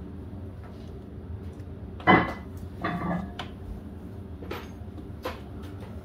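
Metal hand tools being handled and set down: a sharp clanking knock about two seconds in, a rattling clatter a second later, then a few light clicks, over a steady low hum.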